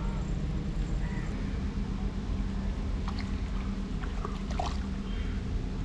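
Steady low rumble, with a few faint short bird calls and light clicks over it.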